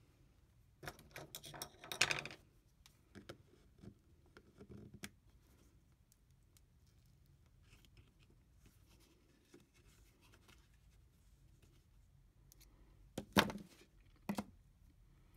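Soft plastic lure being peeled and pried out of a 3D printed plastic mold: faint scratching and tearing of the rubbery plastic for the first couple of seconds, then a few light ticks. Near the end come two sharp knocks about a second apart.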